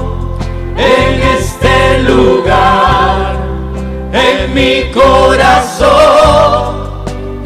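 Live gospel worship music: a male lead singer and choir singing held, wavering notes over a band with electric guitar and a steady bass.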